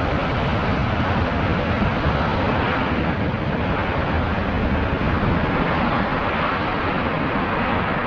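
Jet airliner engines running, a steady loud rushing noise that neither rises nor falls.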